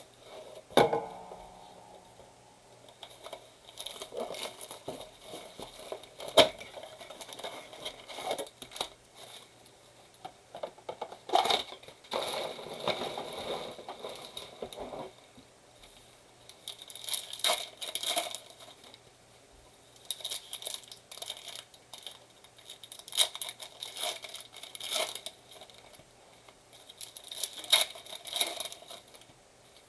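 Trading-card blaster box being unwrapped and opened: plastic wrapping and foil card packs crinkling and tearing in irregular bursts, with sharp clicks and handling of cardboard.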